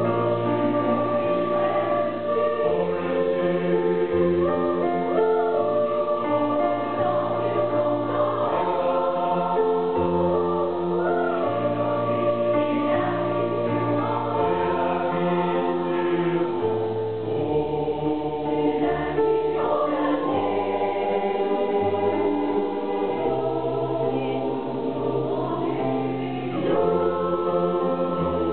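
Mixed choir of men's and women's voices singing together in several parts, in held, steady chords that change every second or two.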